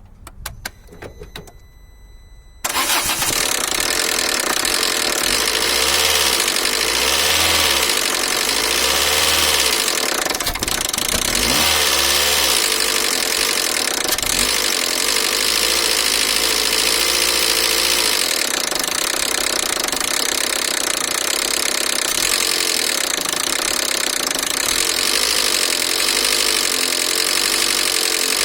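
Peugeot 307SW's 1.6 16V TU5JP4 petrol engine starting suddenly about two and a half seconds in after a few clicks, then running with a knock and being revved up and down several times. The owner traces the knock to a timing belt that had jumped two teeth on the crankshaft sprocket, letting the valves touch the pistons.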